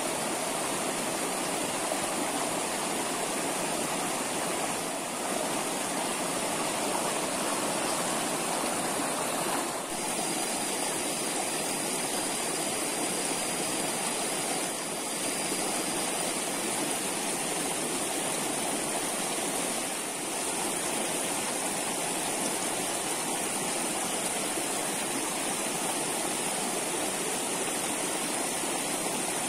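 Steady rushing of a small muddy stream flowing past the bank. A faint thin high tone is heard for several seconds about a third of the way through.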